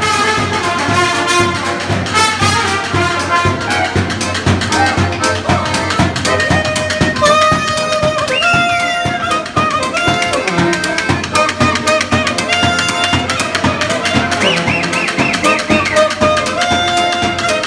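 Music with brass instruments over a steady drum beat.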